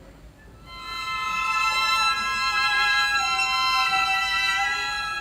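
Violin ensemble playing long, high held notes in harmony, swelling in over the first second and then holding steady; the chord breaks off near the end.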